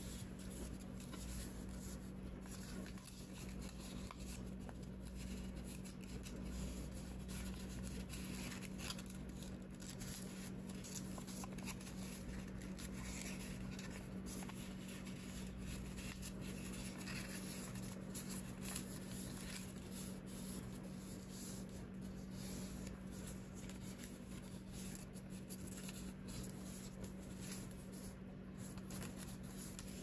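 A sheet of origami paper being handled, folded and creased by hand: soft rustling and crinkling, over a steady low hum.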